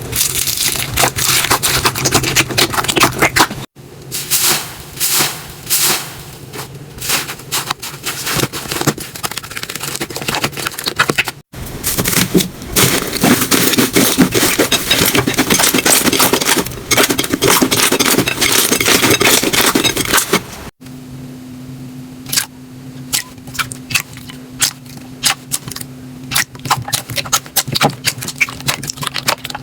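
Slime being squeezed and pressed by hand, giving dense crackling and popping clicks. The sound comes in several clips that change abruptly; the last one has sparser clicks over a steady low hum.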